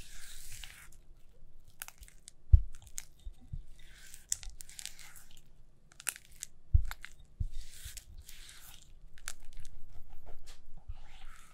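Rubber spatula working softened butter against a glass bowl: soft squishing and scraping strokes, with a few dull knocks, the loudest about two and a half seconds in. Near the end a longer soft hiss as powdered sugar is tipped into the bowl.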